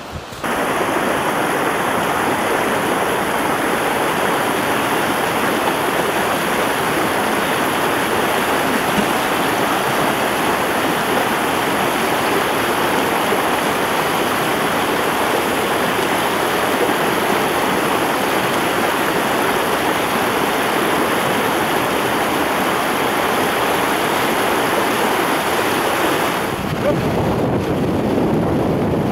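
A fast mountain stream rushing and splashing over rocks in white-water rapids, steady and loud. Its sound shifts a little about three seconds before the end.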